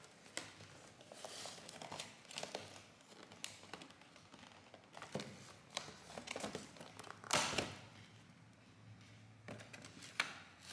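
Crinkling and rustling with scattered light taps and clicks, the loudest rustle a little after seven seconds in.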